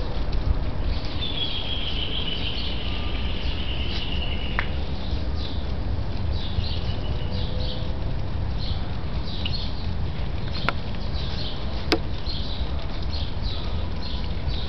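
Small birds chirping repeatedly over a steady low rumble, with one longer falling whistled note early on and two sharp clicks near the end.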